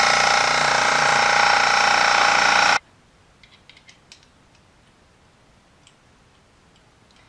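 Makita portable air compressor's motor and pump running steadily, then cutting off suddenly about three seconds in. After it stops come a few faint clicks of the airbrush hose fitting being handled.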